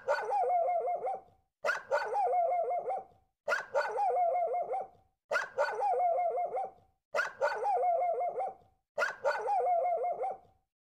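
A dog barking in quick runs of about six barks each, six runs in all, starting about every two seconds. The runs are alike in every detail, as a single recording played over and over.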